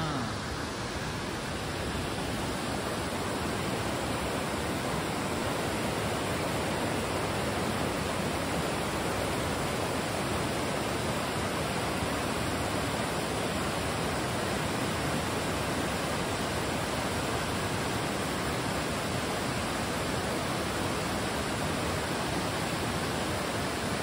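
Waterfall rushing: a steady, even noise of falling water that doesn't change.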